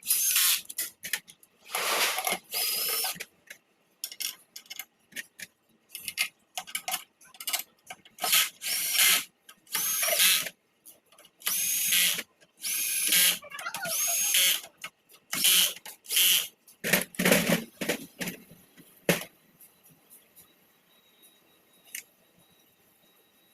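Power drill run in repeated short bursts, some with a rising whine as the motor spins up. The bursts stop about nineteen seconds in.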